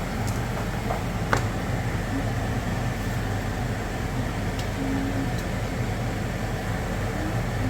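Steady electric motor hum and whir, like a fan, with a few light clicks, the clearest about one and a half seconds in.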